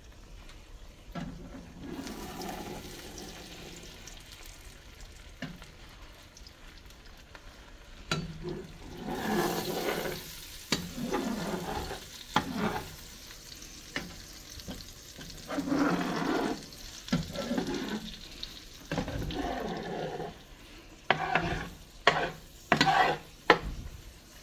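Beaten eggs sizzling in butter in a nonstick skillet while a metal spatula pushes and scrapes them around the pan to scramble them. The spatula strokes come irregularly, with the sharpest scrapes and taps near the end.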